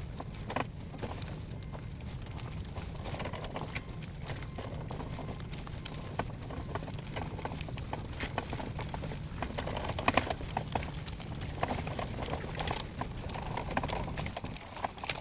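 Graco Aire4 XT stroller giving off repeated, irregular clicks while in use, over a steady low rumble. This is the unwanted clicking noise the stroller has developed.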